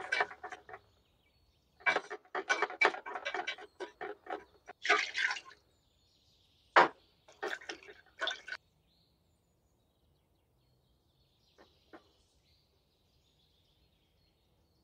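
A béchamel sauce being stirred and then whisked with silicone utensils in a stainless steel pot: bursts of quick sloshing and scraping strokes. There is a single sharp knock about seven seconds in, and a few faint ticks near twelve seconds.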